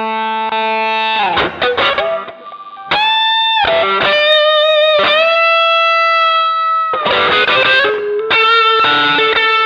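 Electric guitar played clean through an MXR Dynacomp compressor pedal: a held chord, then single notes bent slightly upward, one of them sustained for about two seconds, then a busier phrase of notes near the end.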